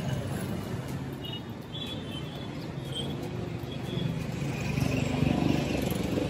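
Busy street traffic: a steady noise of engines and passing vehicles, swelling louder about five seconds in, with a few short high chirps in the first half.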